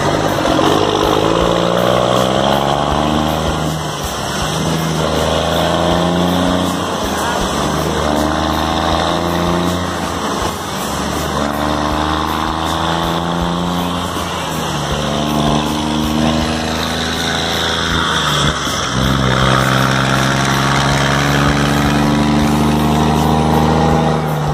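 Scania truck's diesel engine through a straight-through exhaust, pulling away under load. The note climbs in pitch through each gear, then drops at each upshift, several times over.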